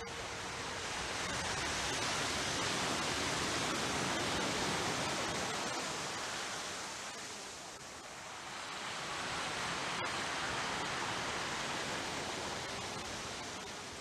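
Sea waves breaking and washing up a sand beach: a steady rush of surf that swells in two long surges, with a lull near eight seconds.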